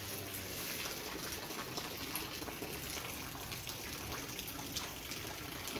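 Steady rain falling, with faint scattered drips.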